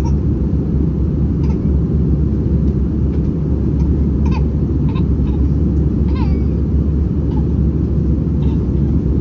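Steady, loud cabin drone of an Airbus A321-200 in flight, engine and airflow noise heard from inside the passenger cabin. A few faint, brief high voice sounds, like a small child's cries, rise above it around the middle.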